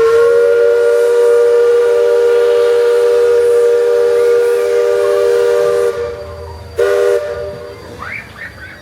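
A multi-chime steam whistle sounding a chord of several steady tones: one long blast of about six seconds, then a short second blast about a second later.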